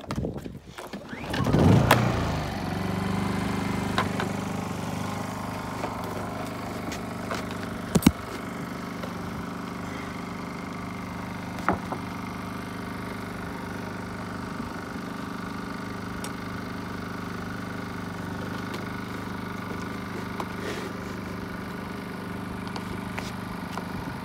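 Portable generator engine pull-started, catching with a brief rising rev about two seconds in and then running steadily. A couple of sharp knocks sound over it, the loudest about eight seconds in.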